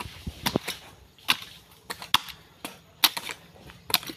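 A hoe chopping into hard, dry earth while digging a pit: a sharp strike roughly once a second, with lighter knocks of blade and loosened soil in between.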